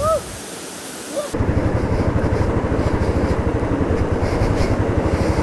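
A short rising-and-falling call over rushing water, then just over a second in a cut to a motorcycle engine running steadily with a rapid, even pulse.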